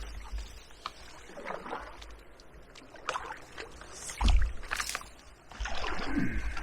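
Inflatable kayak being worked through tangled overgrowth: scattered paddle knocks, splashes and brushing of vegetation, with stretches of low rumble about four seconds in and again near the end.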